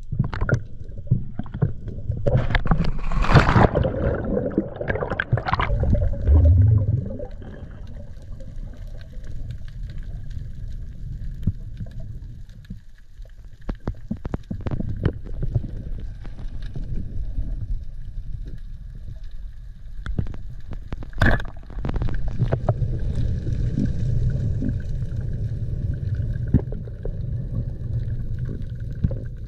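Water moving around a GoPro during spearfishing: a muffled low rumble and gurgling with scattered clicks, a louder rush of noise a few seconds in, and one sharp click about two-thirds of the way through.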